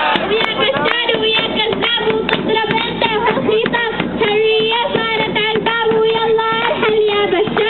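A girl singing a chant into a microphone, holding long sustained notes, with rhythmic hand clapping throughout.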